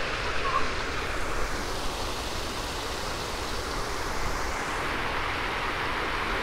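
Water-curtain fountain: many thin streams falling from a round rim into the pool below, making a steady splashing rush.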